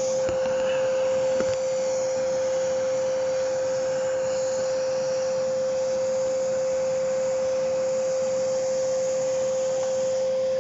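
Hoover Spirit vacuum cleaner running steadily: a loud, even rush of air with a constant high whine from the motor.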